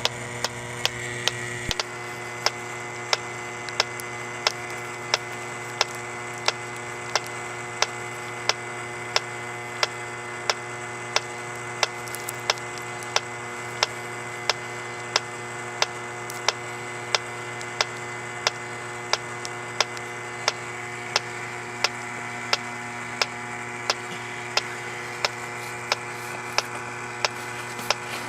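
H10 electronic refrigerant leak detector ticking at a slow, even rate, about one and a half to two clicks a second after a slightly quicker start, over the steady hum of its pump. There is no alarm: it is picking up no refrigerant at the freshly nylogged leak.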